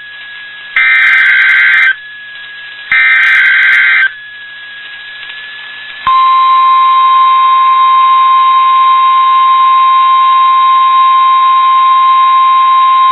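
NOAA Weather Radio SAME header: two bursts of digital data tones, each about a second long and a second apart. About two seconds later comes the 1050 Hz warning alarm, a loud, steady single-pitched tone that holds to the end. Together they are the weekly test signal that switches on weather-alert receivers.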